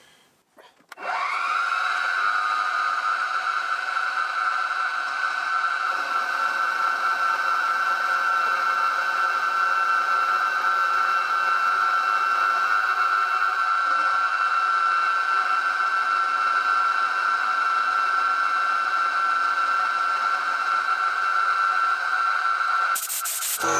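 Milling machine spindle starting up with a rising whine about a second in, then running steadily while an end mill faces off a mild steel block to cut a reference face. It stops near the end.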